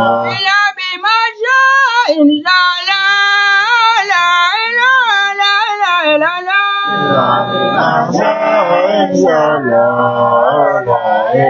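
A young man's high voice singing an unaccompanied Islamic devotional chant, with long wavering held notes. About seven seconds in, lower voices join under it.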